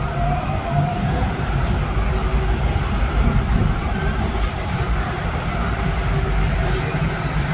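Paris Métro MP05 rubber-tyred train running through a tunnel: a steady low rumble with a faint whine over it and scattered light clicks.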